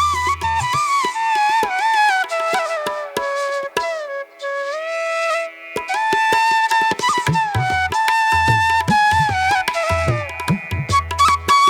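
Background music: a flute-like melody that glides between notes over hand-drum percussion. A low beat is missing for the first half or so and comes back later on.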